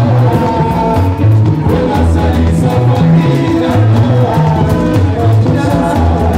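Live African band playing a dance number: a male lead singer over electric guitar, a walking bass line and a steady drum beat.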